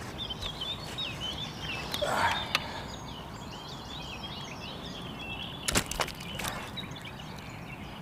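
Several songbirds singing, many short chirps and warbles overlapping, with a brief rustle about two seconds in and two sharp knocks a little before six seconds.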